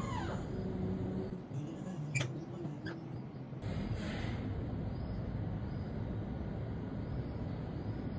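A parrot gives a short falling call at the very start, then two sharp clicks come about two and three seconds in, over steady low background noise.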